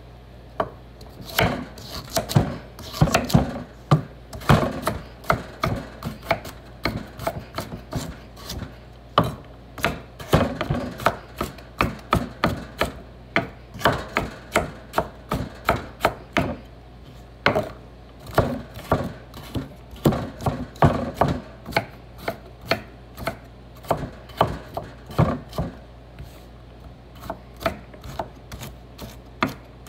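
Kitchen knife chopping carrots on a cutting board: a long run of sharp, irregular knocks, a few a second, with short pauses between runs.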